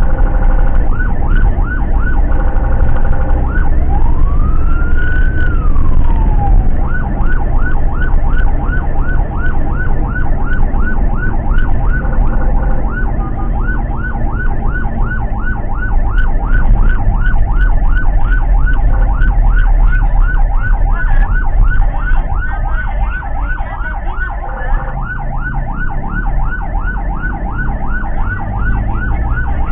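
Electronic siren of a Toyota ambulance van, heard from inside the cab. It starts as a pulsing tone, gives one slow wail rising and falling about four seconds in, then switches to a rapid yelp for the rest. The van's engine runs underneath.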